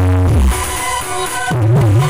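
Electronic dance music played loud through a large outdoor sound system with stacked bass cabinets. The heavy bass drops out about half a second in for a short break with a high hiss, and a wobbling bass line comes in near the end.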